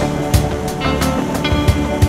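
Background music with a steady drum beat and held instrument notes.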